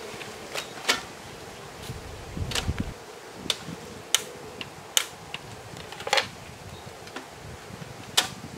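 Cookware and utensils being handled at an outdoor cooking setup: irregular sharp clicks and knocks, about one a second, over a faint steady hiss, with a brief low rumble about two and a half seconds in.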